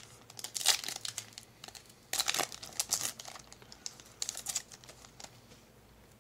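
Foil wrapper of a Yu-Gi-Oh! booster pack crinkling and tearing as it is torn open by hand, in several short bursts, the loudest about two seconds in, dying away near the end.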